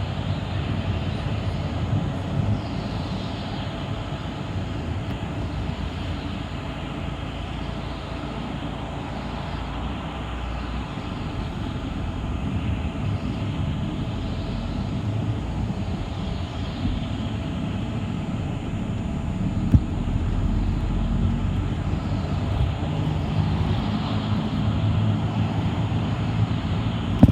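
City bus in motion, heard from inside: a steady rumble of drivetrain and road noise, with one short knock about twenty seconds in.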